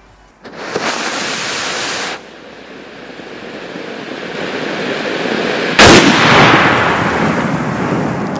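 A firework buried in sand spraying sparks with a loud rushing hiss from about half a second in. The hiss drops back after about two seconds and builds again, then a sharp bang near six seconds is followed by a fading hiss.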